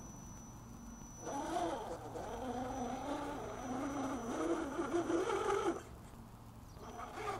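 Motor and shaft drivetrain of a 1:10 scale RC rock crawler whining as it climbs over rocks, the pitch rising and falling with the throttle; it starts about a second in and stops near the end.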